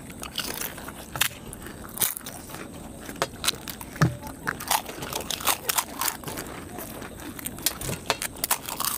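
Two people eating pani puri: the crisp, hollow puri shells cracking as they are poked open and crunched between the teeth, a quick, irregular run of sharp crackles with one duller thud about four seconds in.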